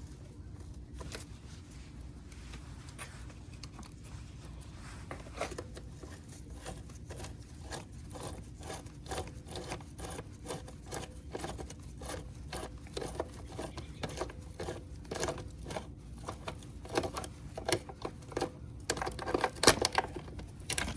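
Hand work on a Honda EU2200i inverter generator's housing and fasteners: a run of small clicks and scrapes, about two or three a second, growing denser and louder near the end, over a low steady hum.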